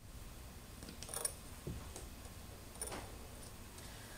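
A few light metallic clicks as small precision shims are handled and dropped onto the bolts of a CNC router gantry plate, the loudest a little over a second in.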